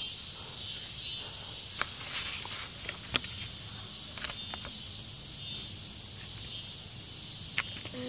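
A steady, high-pitched chorus of evening insects in the woods. A few sharp clicks or snaps cut in, about four of them scattered through it.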